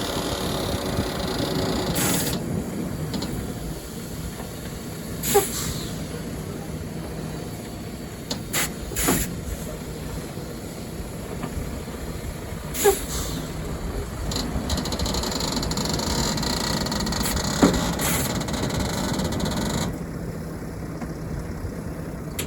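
Heavy truck driving at highway speed, heard from inside the cab: a steady engine and road rumble with hiss, broken by a few sharp clicks or knocks now and then.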